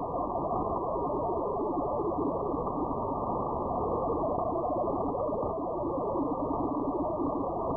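Shortwave receiver audio on the 40 m band from an RTL-SDR: a steady, dull rush of band noise with a weak Olivia 8-250 digital signal buried in it, a fast warble of shifting tones.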